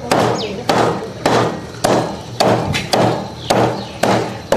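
A kitchen cleaver chopping through a fish on a wooden cutting board: steady, evenly spaced strokes, about two a second, eight or nine in all.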